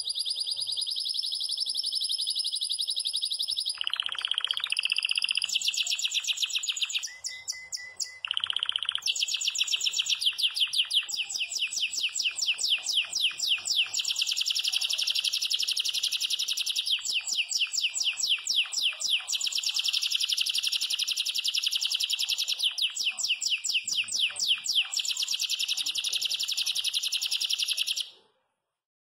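Yellow domestic canary (canário belga) singing a long, unbroken 'campainha' song of very rapid trills. Two short, lower phrases come about 4 and 8 seconds in, and the song stops suddenly near the end.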